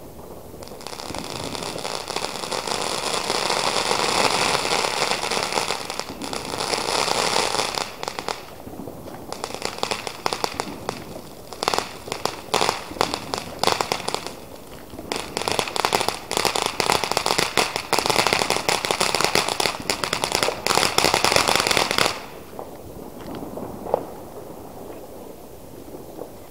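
A ground firework burning on the road: a steady spraying hiss for the first several seconds, then dense rapid crackling. The crackling stops abruptly a few seconds before the end, leaving a couple of faint pops.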